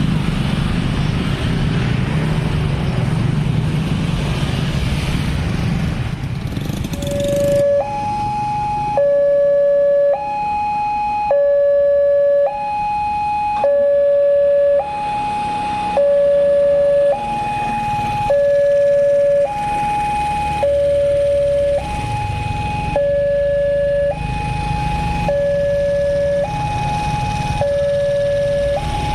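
Railway level-crossing warning siren, newly replaced, sounding a two-tone hi-lo wail that switches every second or so between a lower and a higher tone. The siren starts about seven seconds in. Before that there is broad vehicle noise.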